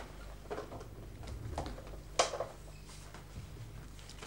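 Typewriter keys struck slowly, one at a time in hunt-and-peck fashion: a few faint clicks and one louder clack a little past two seconds in.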